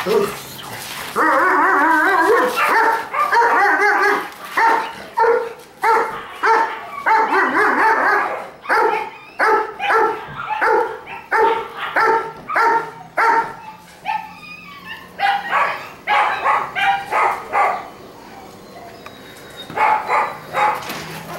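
Dobermann puppy barking in quick runs of short, high-pitched barks and yaps, excited play barking over a rope tug toy.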